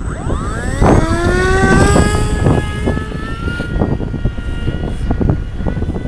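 Electric motor and propeller of a Bixler 2 RC foam plane spooling up at a hand launch: a whine that climbs in pitch over the first three seconds, then holds steady. Heavy wind buffets the microphone underneath.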